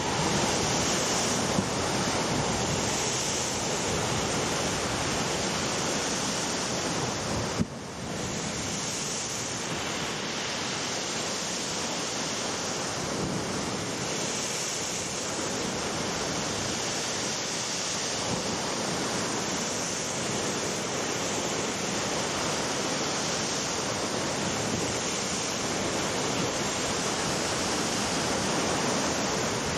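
Rough sea surf breaking against a sea wall: a steady rushing wash of waves, with a brief dropout about eight seconds in.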